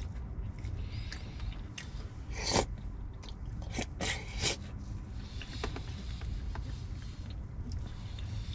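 A person chewing and biting food close to the microphone, with scattered short crunches and small scrapes, the loudest a little over two and a half seconds in. A low steady hum runs underneath.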